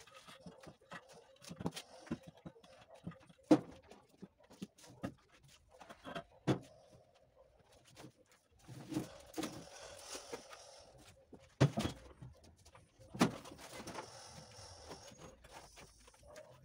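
Irregular metal clanks and knocks as heavy steel suspension parts are handled and fitted on a truck chassis, the loudest strikes about three and a half, eleven and a half and thirteen seconds in, with softer scraping and rustling between.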